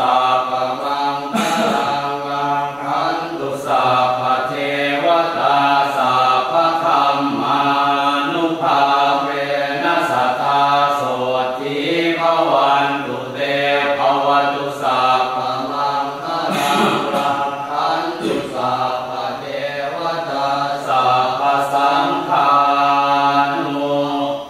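Buddhist chanting in Pali by several voices reciting together in a steady, even chant, with short breaks between phrases.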